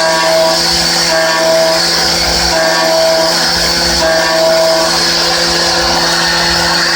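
16 mm end mill in a Hermle C20U machining centre trochoidal-milling at 4800 rpm, 30 mm deep and 1 mm wide per pass: a steady machining whine with several held tones, and a higher tone that comes and goes about every second and a half as the cutter loops into the cut.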